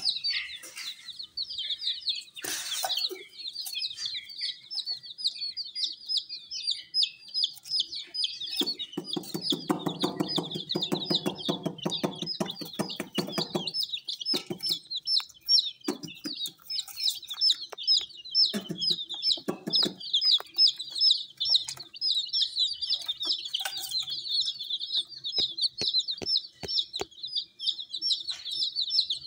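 A flock of baby chicks peeping without pause: many short, high chirps overlapping. From about nine to fourteen seconds in, a lower buzzing sound with a fast rattle joins them.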